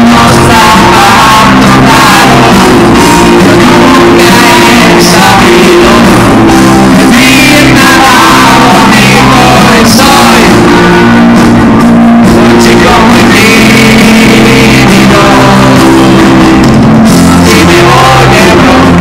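Live pop-rock band playing a song with electric guitar, bass and drums and sung vocals, heard very loud in a large concert hall.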